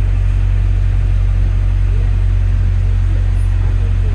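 Steady low engine rumble of a city bus, heard from inside the moving bus.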